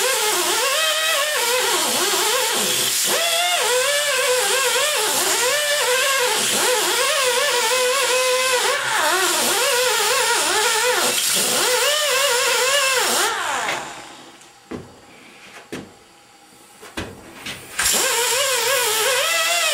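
Air-powered rotary wire brush on a die grinder scrubbing flux off nickel welds in a cast-iron cylinder head. Its whine rises and falls as the brush is pressed into the metal and eased off, over a steady air hiss. It stops for a few seconds, with a few light clicks, then starts again near the end.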